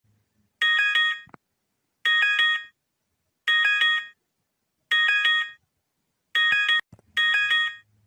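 Electronic emergency-alert (EAS-style) alarm tone: a harsh chord of several high steady tones sounding in six short pulsed blasts, about one every second and a half, with the last two coming closer together.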